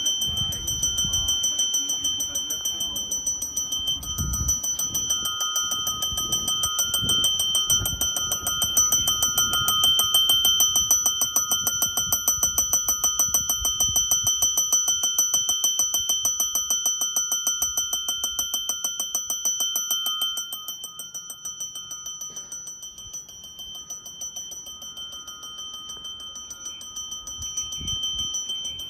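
Electric platform bell at a railway station ringing continuously, struck in a rapid even rhythm with a high metallic ring; it grows quieter about two-thirds of the way through.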